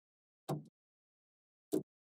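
Small magnetic balls clicking together as they snap into place: two sharp clicks, about a second and a quarter apart.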